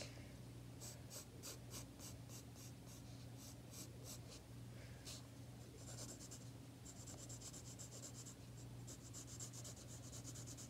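Faint graphite pencil scratching on sketchbook paper in quick short strokes, about three a second, then in longer runs of scratching from about six seconds in, as individual hairs of a horse's mane are sketched. A steady low hum lies underneath.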